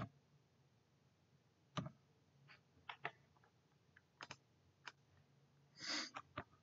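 Faint, irregular clicks of computer keys or a mouse being pressed, about ten in all, over near silence, with a short soft rustle about six seconds in.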